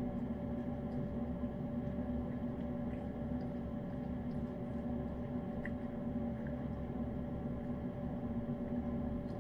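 Steady machine hum with two even tones, under faint small wet clicks of a cat licking and chewing wet food.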